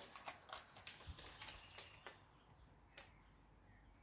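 Near silence with a few faint, irregular clicks in the first two seconds and one more about three seconds in.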